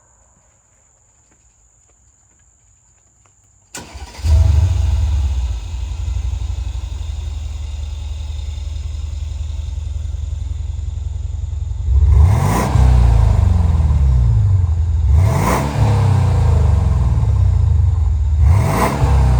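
Mercedes SL550 V8 started with its Valvetronic exhaust valves closed, about four seconds in: it catches with a loud flare, settles to a steady idle, then is revved three times, each a quick rise and fall in pitch. The exhaust runs through a Valvetronic Designs universal muffler with the resonator deleted.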